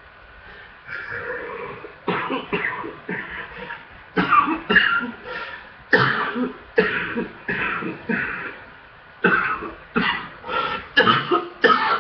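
A person in a congested-chest coughing fit: after a quiet first second, a long run of hard, wet coughs in quick clusters, one after another, typical of a chest full of phlegm.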